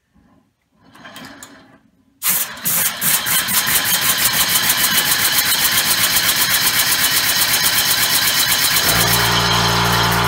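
A homemade compressed-air engine, fed air on one cylinder, starts about two seconds in and spins up with a rapid, even train of air puffs that quicken at first. Near the end a small pancake air compressor kicks on with a steady hum underneath.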